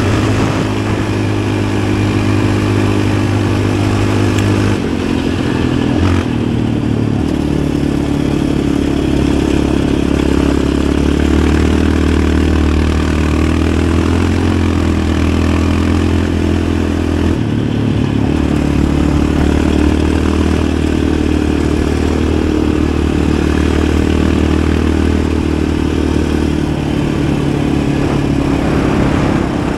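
Yamaha Raptor 700 ATV's single-cylinder four-stroke engine running under way on a trail, its note shifting in pitch a few times as the throttle changes.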